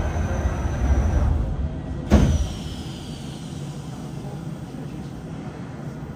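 Subway car's double sliding doors rolling shut and meeting with a single loud thud about two seconds in, followed by the steady low hum of the standing train.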